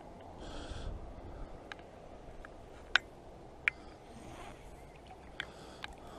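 Quiet outdoor background with a few sharp clicks, two louder ones about three seconds in and less than a second apart, and short hissy noises in between.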